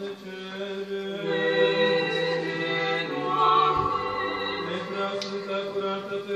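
Church choir singing Orthodox liturgical chant in long held notes. More voices come in about a second in and the chord grows fuller and louder.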